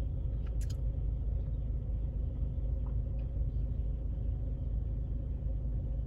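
Car engine running, a steady low rumble with a faint steady hum, heard from inside the car's cabin. A single brief click about half a second in.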